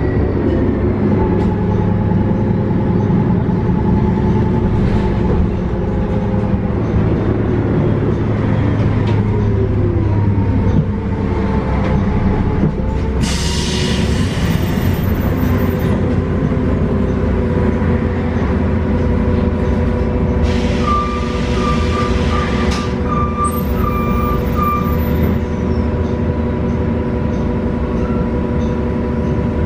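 Cummins L9N natural-gas engine and Voith transmission of a 2019 Nova Bus LFS CNG heard from inside the bus, running with a whine that falls in pitch about ten seconds in as the bus slows. Two bursts of hiss follow, the second with a run of short beeps.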